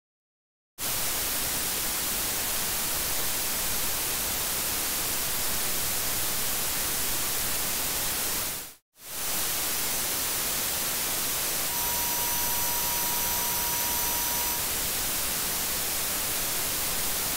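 Self-noise of a Behringer S32 stage box mic preamp, its input terminated with a 150 ohm resistor and boosted 80 dB: a steady, even hiss that starts about a second in and drops out for a moment near the middle. In the second half a few steady high-pitched tones sound over the hiss for about three seconds.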